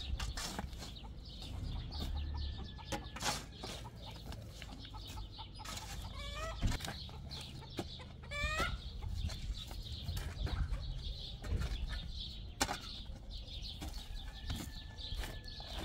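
Birds calling, with short rising calls about six and eight seconds in, over a low rumble and scattered clicks.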